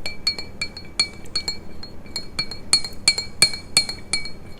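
A spoon stirring a drink in a glass, clinking quickly and unevenly against the side several times a second, each clink ringing briefly.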